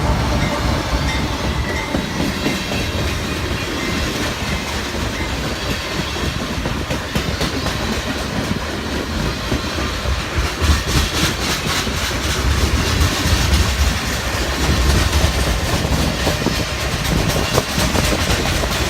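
Freight cars of a CSX manifest train rolling past at close range, a steady rumble with the clickety-clack of wheels over rail joints, the clicks thickest about ten to thirteen seconds in.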